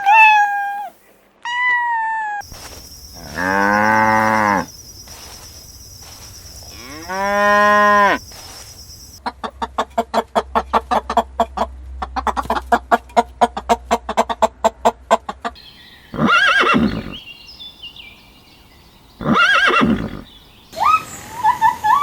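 A series of farm animal calls: a cat meowing at the start, then a cow mooing twice, each moo a couple of seconds long. A rapid string of short pulses follows for about six seconds, then two short calls, and meow-like calls return near the end.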